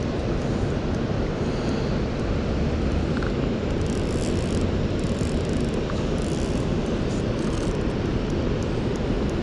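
Steady, unbroken rushing of water pouring over the river weir.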